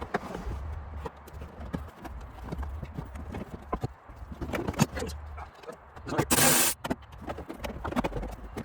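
Irregular clicks, taps and knocks of tools and parts being handled while a component is removed to free the 2009 Toyota Prius's 12-volt battery. A louder rasp lasts about half a second, about six seconds in.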